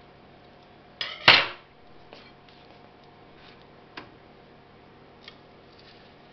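Kitchen utensils being handled: one loud clatter about a second in, then a few light single clicks, as a plastic slotted spatula is taken off a plate and brought to the nonstick frying pan.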